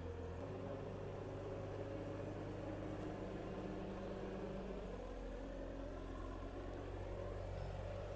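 A motor vehicle's engine running steadily with a low hum, its note shifting slightly about half a second in and again around five seconds in.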